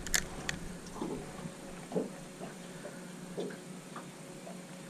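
Spinning rod and reel being cast and worked: a sharp click just after the start and another about half a second in, then scattered soft ticks and taps, over a faint steady low hum.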